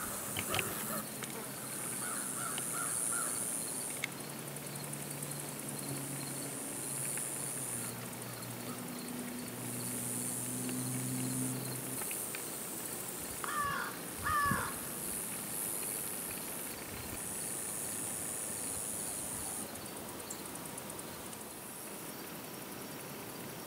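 Insects buzzing high, in stretches of a few seconds that start and stop, with a bird calling twice about halfway through and a low steady hum for several seconds in the first half.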